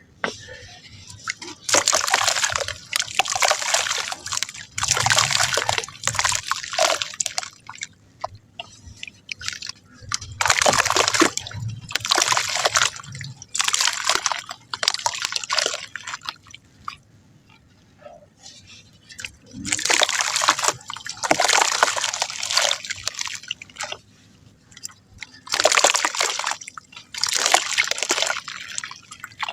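Soft mud crumbling into water, splashing and sloshing in about a dozen bursts a second or two long, with short pauses between them.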